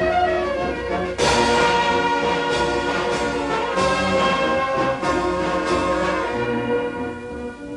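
Wind band of brass and woodwinds playing. A loud full chord comes in about a second in, with accented strokes on the beat roughly every half second, and the sound fades near the end.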